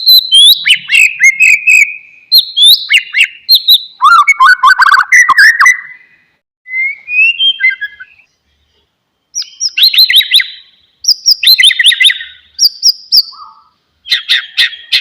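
White-rumped shama singing a rapid, varied song of whistled phrases mixed with sharp clicks, breaking off briefly a few times.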